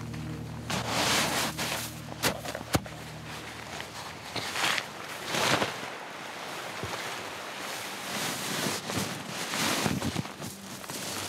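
Nylon tent fabric and stuff sacks rustling and flapping as they are handled, in several separate bursts, with a couple of sharp clicks a little over two seconds in. Low music fades out in the first few seconds.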